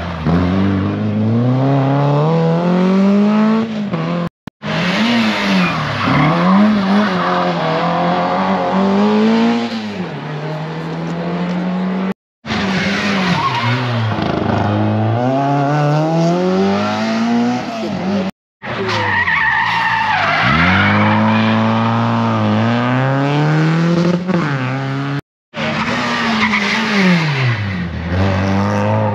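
Rally cars at full throttle, one after another: each engine revs up, drops back at the gear changes and on braking, then climbs again. The sound cuts off abruptly four times between cars.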